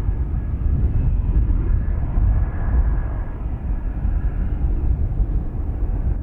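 Bell 212 twin-turbine helicopter flying past: a steady low rotor thudding, with a high turbine whine that fades out about two thirds of the way through.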